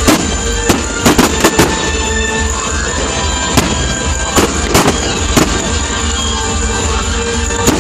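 Fireworks display: sharp bangs of bursting aerial shells, a quick cluster in the first two seconds and then scattered single reports, over loud music.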